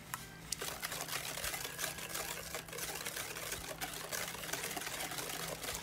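Wire balloon whisk beating eggs and sugar in a glass bowl: fast, continuous clattering of the metal tines against the glass.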